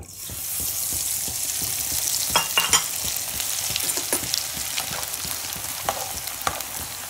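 Kamarkas (butea gum flakes) tipped into hot ghee in a wok: the ghee starts sizzling at once and keeps frying steadily, with scattered sharp pops as the gum froths and puffs up. A spoon stirs it near the end.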